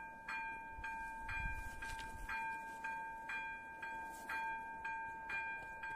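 Electronic bell (ZV-02) of an AŽD 71 level-crossing warning signal ringing about twice a second, each stroke a bright bell-like ring, sounding the warning that a train is approaching.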